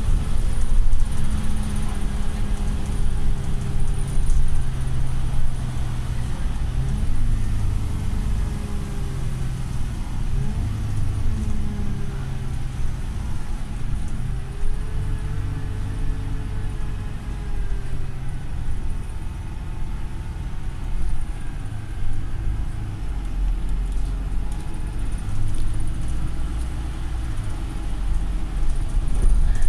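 Volvo MCV Evora single-deck bus heard from inside the passenger cabin while driving: a steady low engine drone with a whine that rises and falls several times.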